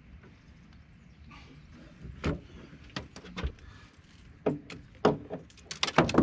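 Irregular sharp knocks and clatters on the floor of an aluminium jon boat as a small flathead catfish is unhooked and handled on deck. The knocks start about two seconds in and come thicker near the end.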